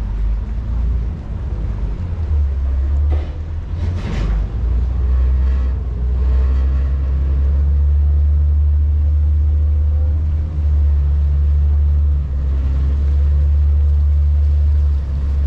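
Vaporetto water bus running under way, a steady deep engine rumble, with a couple of short knocks about three and four seconds in.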